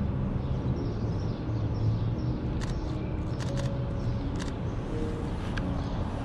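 A few short camera shutter clicks, one about two and a half seconds in, a quick cluster of three a second later and one more near four and a half seconds, over a steady city-street traffic rumble.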